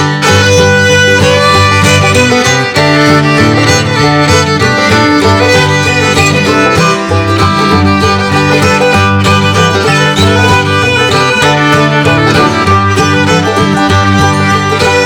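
Background music: a lively fiddle tune with guitar accompaniment, in a bluegrass or country style.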